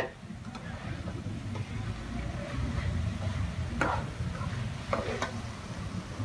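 Metal spatula scraping and clinking against a wok as okra is stir-fried: one knock at the start, another a little before four seconds in, and two more about a second later, over a steady low rumble.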